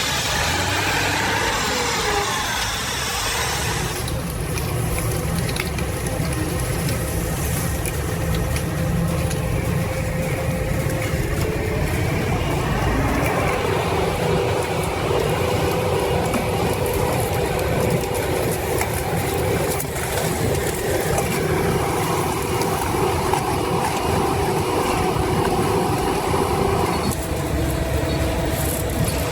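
Heavy machinery engine running steadily under load, its sound changing abruptly about four seconds in and again near the end.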